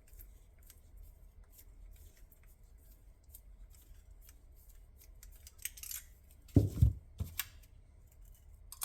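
Small clicks and scratches of a tool picking at and breaking up the clay plug of a firework canister shell, with a couple of heavy knocks about six and a half to seven seconds in.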